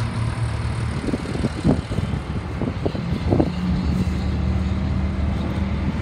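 The 1988 Ford F-800's 7.8-litre diesel engine idling steadily, a low even hum, with a few brief bumps over it between about one and three and a half seconds in.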